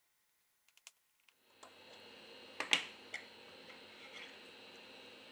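A few faint, short clicks and taps from a precision screwdriver and the small screws of a smartphone's bottom cover being worked out and handled. The loudest cluster comes about two and a half seconds in, with a smaller click just after and a very faint one later.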